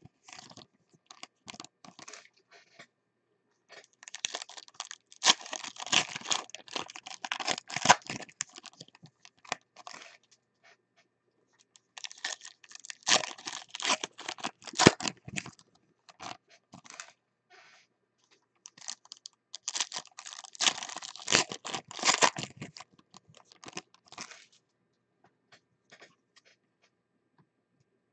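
Foil trading-card pack wrappers (2019 Panini Contenders) being torn open and crinkled by hand, in three bursts of crackling, with quieter clicks of cards being handled in between.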